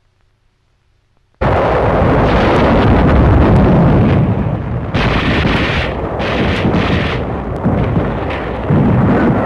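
Near silence, then about a second and a half in, loud battle sounds start abruptly: continuous explosions and heavy gunfire with many sharp cracks.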